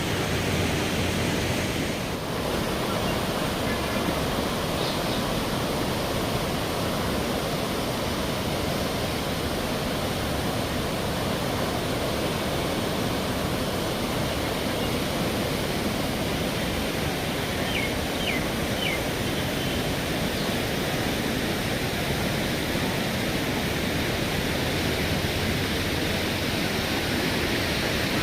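River water rushing past in a steady, unbroken wash of noise.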